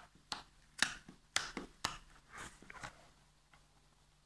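A few faint, short ticks and rustles of a hand handling the paper pages of a picture book.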